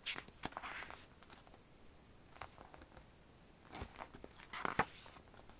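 Pages of a glossy photobook being turned by hand: several short paper flips and rustles, with quieter gaps between them.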